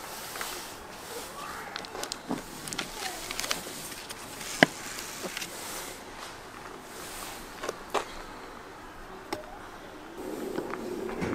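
A soft loaf of bread being sliced with a knife on a wooden cutting board: light scraping and scattered small knocks, with one sharp knock about four and a half seconds in.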